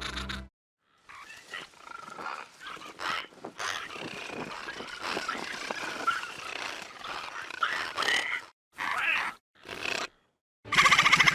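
Sound-designed calls of a baby azhdarchid pterosaur: a short call, then a long run of overlapping raspy calls, then several separate short calls cut apart by sudden silences.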